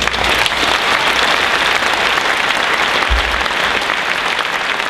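Audience applauding: dense, steady clapping from a hall full of people, louder than the speech around it.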